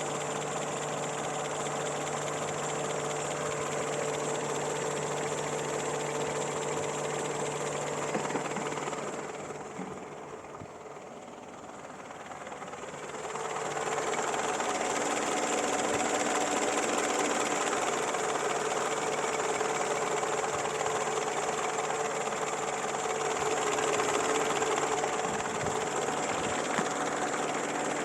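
Peugeot 205's TU four-cylinder petrol engine running steadily with a mechanical noise. It drops off for a few seconds about a third of the way in, then comes back a little louder with a changed note. This is the noise the owner is asking about, linked to shaking on acceleration.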